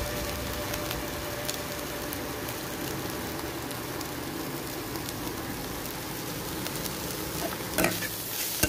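Spiced scrambled egg sizzling steadily in oil in a metal kadai, with a few sharp knocks of a metal spatula against the pan near the end as it is stirred.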